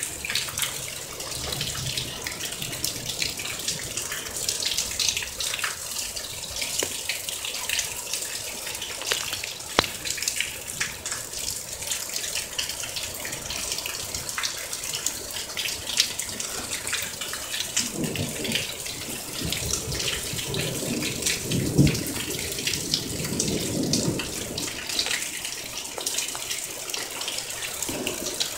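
Heavy thunderstorm rain falling and splashing, with many sharp taps of nearby drops. A low rumble comes and goes about two-thirds of the way through.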